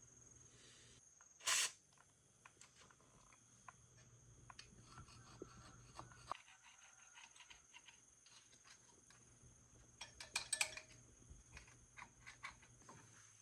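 Faint, scattered clicks and light knocks of small parts or tools being handled, with one sharper scrape-like hit about a second and a half in and a flurry of clicks around ten seconds. A steady, high-pitched insect drone runs underneath.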